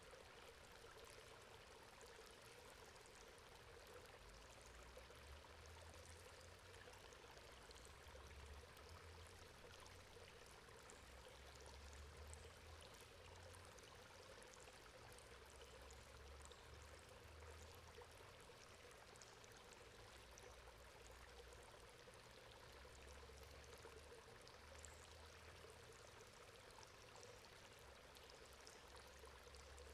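Water running steadily through a metal grate, faint and continuous.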